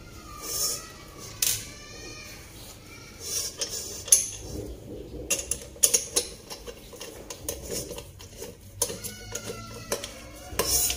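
Frying-pan handle being screwed onto its metal bracket with a screwdriver: irregular sharp clicks and clinks of metal on metal, with some scraping as the screw turns.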